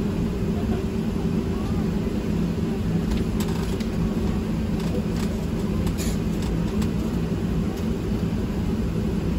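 Steady low rumble and hum inside the cabin of a Boeing 737-900 with its engines running, with a few faint clicks around the middle.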